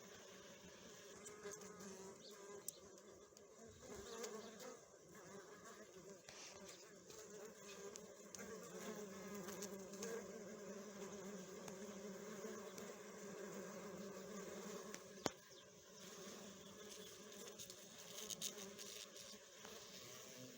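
Honeybees humming around a hive: a steady low buzz that swells and fades as bees pass nearer and farther. There is a single sharp click about fifteen seconds in.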